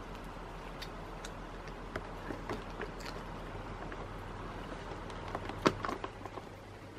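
A kitten licking and lapping a creamy cat treat from a squeeze tube: small wet clicks and ticks, a few at a time, with one sharper click near the end, over a steady low hum.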